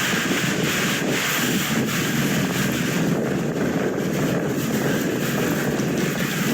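Wind buffeting the microphone: a steady, noisy rumble.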